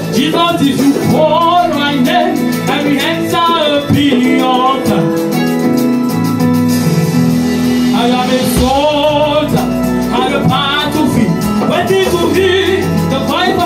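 Loud live music on stage: a singer's voice into a microphone over the band's or backing track's accompaniment, with a steady bass line.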